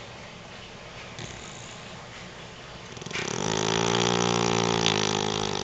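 Beagle snoring in its sleep: quiet breathing, then about three seconds in a long, loud, droning snore that holds for about two and a half seconds before stopping.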